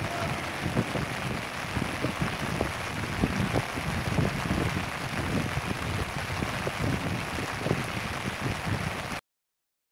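Steady outdoor rush of rain, with irregular gusts of wind buffeting the microphone; all sound cuts off abruptly about nine seconds in.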